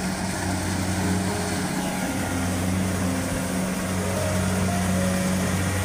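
Kubota rice combine harvester's engine running steadily, a constant low hum.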